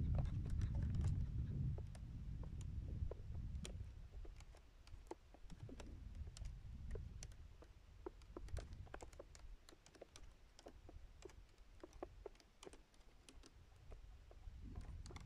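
Scattered light clicks and ticks at an irregular pace, with wind rumbling on the microphone, strongest over the first few seconds and again around the middle.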